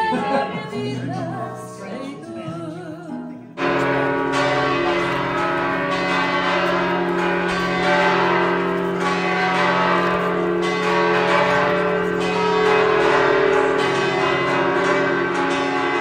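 A song with a singing voice and guitar ends about three and a half seconds in, then church bells start pealing: many bells struck over and over, ringing on together.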